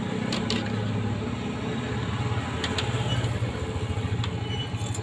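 A motor vehicle engine running steadily nearby, a low hum, with a few light clicks from utensils at the food cart.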